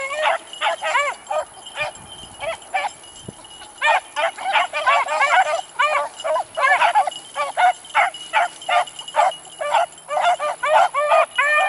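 Pack of beagles baying on a rabbit's trail: rapid, overlapping bawls and yelps from several hounds, dropping away for about two seconds shortly after the start, then opening up again.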